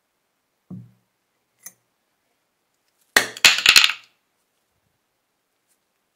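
A soft knock of a small object set down on wood near the start. About three seconds in comes a loud second-long cluster of clicks and clinks, with a little hiss, as a metal aerosol spray can is handled.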